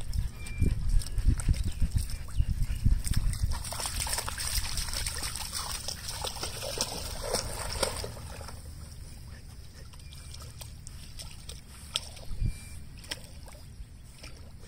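Huskies wading and splashing through shallow lake water. The splashing is busiest for the first half, then thins to a few scattered splashes after about eight seconds.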